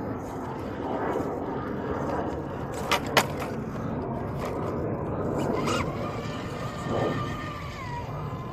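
Radio-controlled rock crawler's electric motor and drivetrain whining as it crawls over rock. The whine drops in pitch near the end. There are two sharp clicks about three seconds in.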